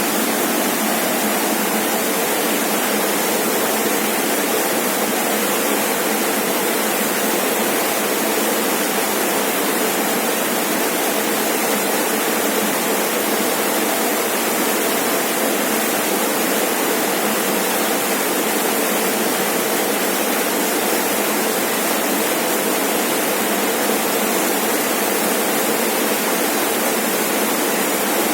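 Rainforest waterfall: water falling and splashing in a steady, unbroken rush.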